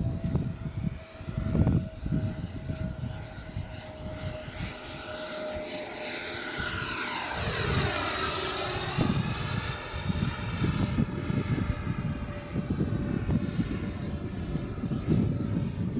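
Freewing T-45 90mm electric ducted-fan RC jet making a low fly-by: its whine grows louder about six seconds in, peaks around eight seconds with the pitch dropping as it passes, then fades a few seconds later.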